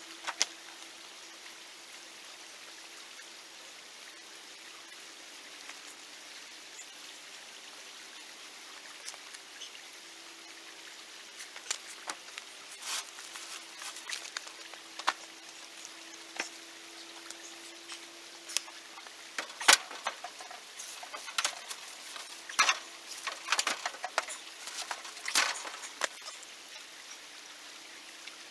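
Steady faint rush of flowing creek water. Over the second half comes a run of sharp clicks and knocks from loose rocks clacking together.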